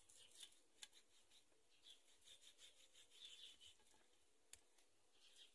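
Faint, irregular scraping strokes of a kitchen knife slicing raw pork rib meat into small pieces, with two small clicks, one about a second in and one near the end.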